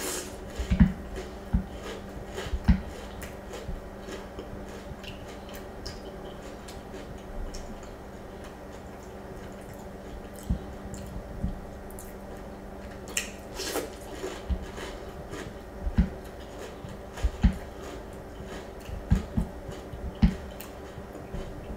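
Cereal in milk being eaten: scattered wet chewing and slurping sounds, with a wooden spoon scooping and stirring in a glass bowl of milk.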